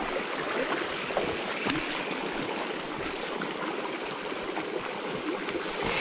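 Shallow creek water running over stones and through a small riffle: a steady rushing.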